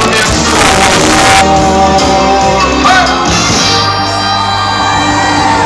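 Music with singing: sustained pitched notes that change every half second or so.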